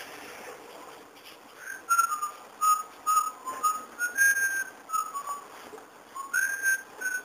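A person whistling a tune: short clear notes stepping up and down in pitch, beginning about two seconds in after a quiet hiss.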